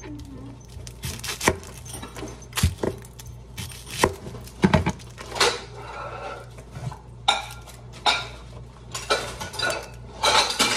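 Kitchen clatter: scattered knocks and clinks of a knife and utensils on a wooden cutting board, mixed with short bursts of papery rustling as an onion is peeled by hand.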